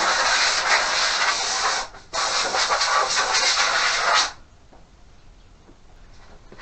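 Compressed-air line blowing dust off a PC case's side cover: a loud hiss in two long blasts, with a brief break about two seconds in, stopping about four seconds in.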